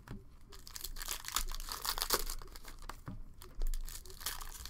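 Plastic wrappers of Panini Prizm basketball card packs crinkling and tearing as the packs are ripped open by hand, in irregular crackles. A single dull thump comes about three and a half seconds in.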